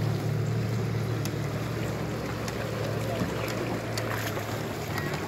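Low, steady drone of a boat motor running slowly nearby, stronger at first and weakening after about two seconds, over lapping water with a few small splashes and knocks.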